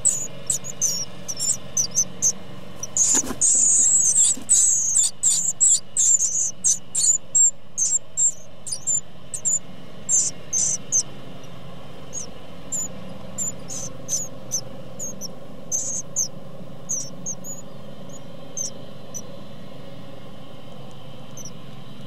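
Great tit nestlings begging in the nest box: a rapid chorus of short, high-pitched cheeps, busiest in the first ten seconds with a brief knock about three seconds in, then thinning to scattered calls that die away near the end.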